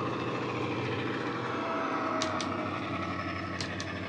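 Class 68 diesel engine sound from a model locomotive's LokSound 5 sound decoder, playing through an EM2 speaker: a steady diesel drone as the loco runs. Two pairs of sharp clicks come from the track about halfway through and again near the end.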